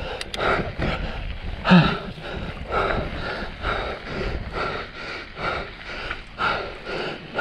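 Mountain biker panting hard while racing, about two rapid breaths a second, with a short grunt about two seconds in, over low wind and tyre rumble.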